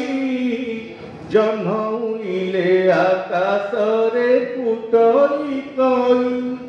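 A man singing a chant-like tune into a microphone, in long held notes that glide up and down, phrase by phrase with short breaks between.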